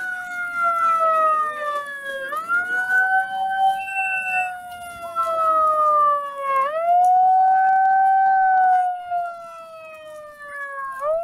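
Handheld megaphone's built-in siren wailing: a tone that sweeps up quickly and then slides slowly down, over and over, about every four seconds.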